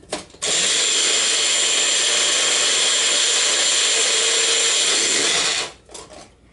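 Bullet-style personal blender running for about five seconds, chopping fresh mint leaves and stems in a little water: a loud, steady whir with a faint high whine that starts with a click and cuts off suddenly, followed by a few short clicks as the cup is handled.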